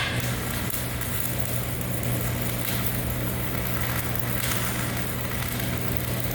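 Engine idling steadily, a constant low hum with no change in pitch.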